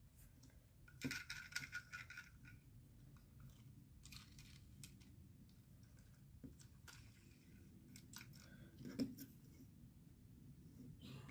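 Faint clicks and short rattles of small plastic Lego pieces being handled, with a brief cluster about a second in and a sharper click near the end.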